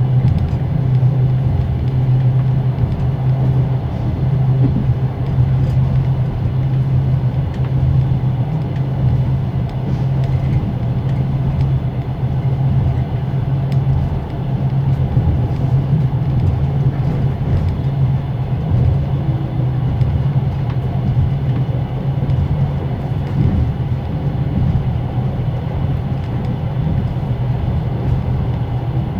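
Passenger railway carriage heard from inside a closed compartment: the axle-driven generator under the car whines at a steady pitch over the rumble of running gear and wheel clatter on the rails.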